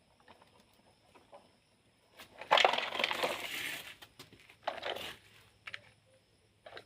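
Small plastic toys being handled: a loud crunching, clattering scrape lasting over a second about two and a half seconds in, then a shorter scrape and a few sharp clacks.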